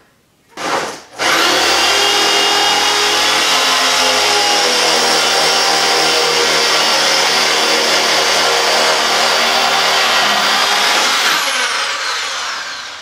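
Hammer drill boring a hole into a concrete floor for a wedge anchor: a short burst about half a second in, then a steady run of about ten seconds that winds down near the end.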